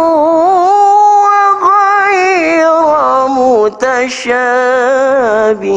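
A male qari reciting the Quran in melodic tilawah style, drawing out long, ornamented vowels. The pitch steps down through the second half, and the phrase ends near the close.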